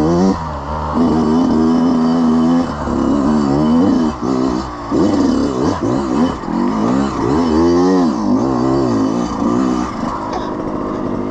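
Two-stroke dirt-bike engine, throttle blipped on and off again and again, the pitch repeatedly rising and falling as it picks through technical trail. From about ten seconds in it settles to a steadier note.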